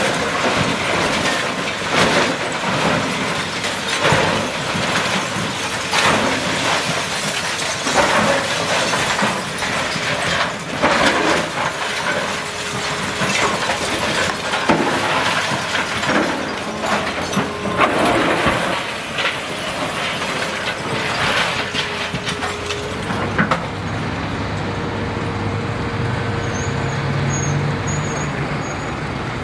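Hydraulic excavator with a demolition grapple tearing down a building: repeated crashes and clatter of breaking concrete, metal and debris over the running diesel engine. About 23 seconds in the crashing stops, leaving the engine running steadily.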